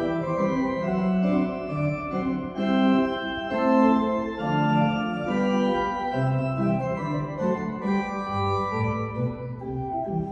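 Church pipe organ playing a piece: sustained chords with a moving melody over bass notes that step lower in the second half.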